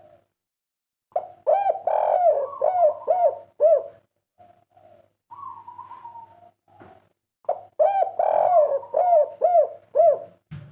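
Spotted dove (tekukur/derkuku) of the prized 'kuk 3' type cooing: two phrases, each a quick run of rounded coos, with a softer drawn-out coo between them. A faint low hum sits underneath, and there is a brief knock near the end.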